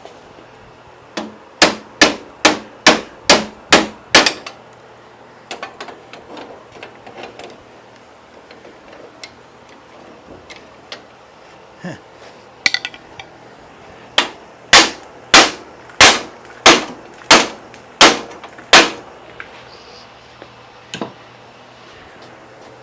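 Brass hammer striking metal on the steering pinion of a John Deere 120 lawn tractor, to shock the tight pinion gear loose. There are two volleys of about eight sharp, ringing blows each, roughly two a second. The first starts about a second in and the second about fifteen seconds in, with a few light metal clinks between them.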